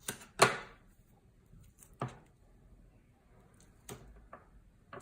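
Double-sided tape being applied to a paper card: a few short crackles and taps of tape and cardstock being handled. The loudest is about half a second in, with others near two and four seconds.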